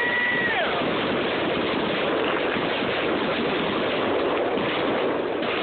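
Ground firework fountain spraying, a steady, loud hiss through a phone microphone, with a whistling tone at the start that drops away about half a second in.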